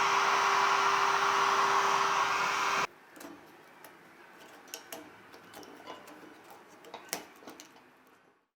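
A small electric machine runs with a steady whir and a constant hum, then cuts off abruptly about three seconds in. Light clicks and taps of handling follow, softer, and fade out near the end.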